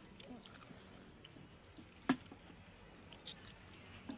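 Quiet background with a few light clicks of serving utensils and containers, and one sharp knock about two seconds in, as food is dished out of a metal pot onto banana leaves.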